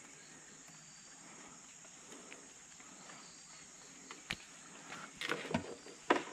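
Steady high-pitched drone of insects, with faint repeated chirps. A few sharp clicks and knocks come near the end.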